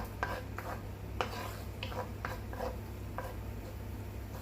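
Utensil stirring garlic in a pan of olive oil: a run of short taps and scrapes against the pan, several a second, over a steady low hum.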